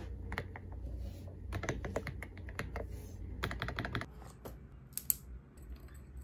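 Typing on a mechanical keyboard: a quick, uneven clatter of keystrokes, thinning out to a few sparser, sharper clicks in the last couple of seconds.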